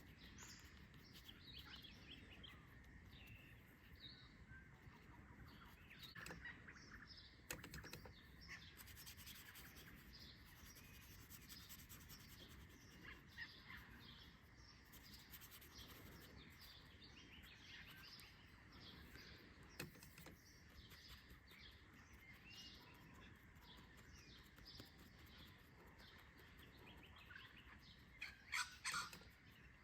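Faint chorus of small birds chirping and calling at dawn, with a few soft clicks and a slightly louder run of calls near the end.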